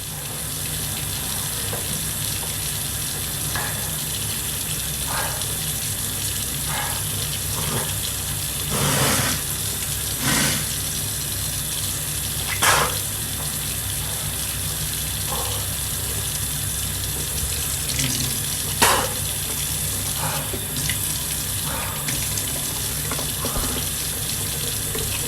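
Water running steadily from a tap, with a few short, sharp sounds over it.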